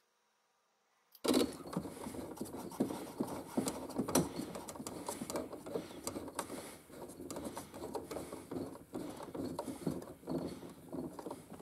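Irregular metallic clicking and scraping of hand work on a mini split's copper refrigerant line connection: a flare nut being threaded on and tightened. It starts abruptly about a second in.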